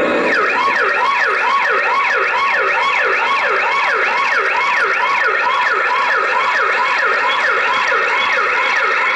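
Recorded emergency-vehicle siren sound effect, a rapid yelping wail that falls in pitch about three times a second.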